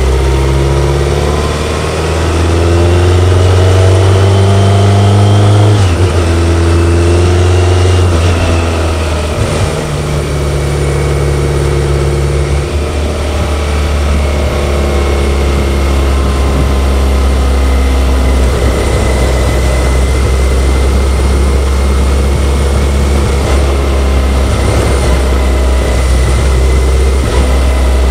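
BMW K1100LT's inline-four engine under way, its pitch climbing for about six seconds, then dropping suddenly and settling to steadier revs with small rises and falls. A thin high whine rises and falls with it.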